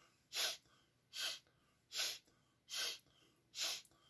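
A man taking short, sharp, noisy breaths in, Strelnikova-style breathing-exercise inhalations: five in a steady rhythm, about one every 0.8 seconds.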